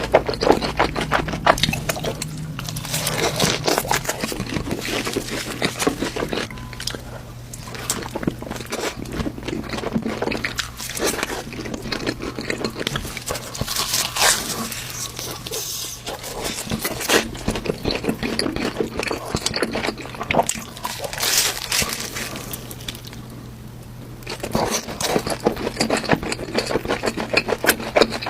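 Close-miked eating: dense, wet chewing and crunching clicks, with a faint steady low hum underneath.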